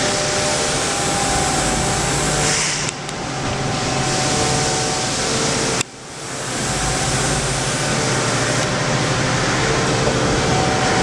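Steady hum and whir of a powered-up Fadal VMC-4020HT CNC vertical machining center, a few steady tones over a hiss. The sound drops out briefly about three seconds in and again about six seconds in.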